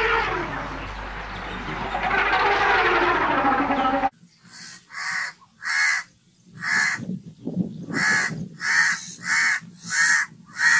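An elephant calls loudly for about four seconds, its pitch sliding downward, and is cut off abruptly. A house crow then caws about nine times in short, harsh calls, spaced about half a second to a second apart.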